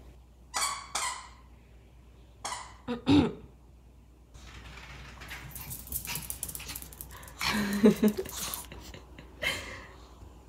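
Maltese dog giving short, high barks several times, with the click and patter of its paws on a laminate floor as it runs through the middle of the stretch.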